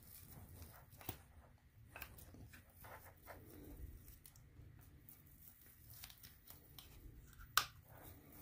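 Faint rustling and small scattered clicks of hands working a hair elastic over a filter sponge on a plastic aquarium powerhead pump, with one sharper click near the end.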